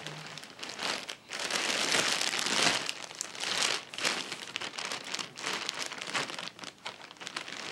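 Thin plastic bag crinkling and rustling as it is handled and rummaged through, in uneven rushes, loudest about two to four seconds in.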